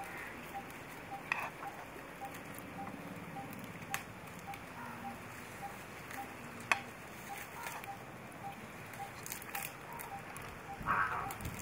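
Open wood fire crackling under a cooking pot, with scattered sharp pops and a faint peep repeating about twice a second.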